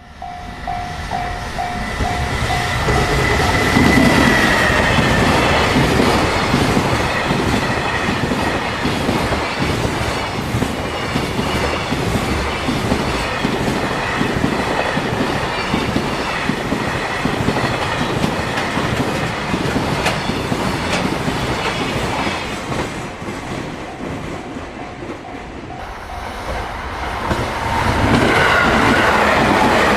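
Freight train passing at speed through a level crossing: a long, even run of wagon wheels clacking over the rail joints. The crossing's warning bell rings in steady pulses for the first few seconds and again near the end, and the train gets louder again just before the end.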